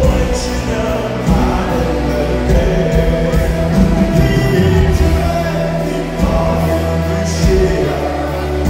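Live band playing loudly through a concert PA, with sung vocals over a heavy, steady bass.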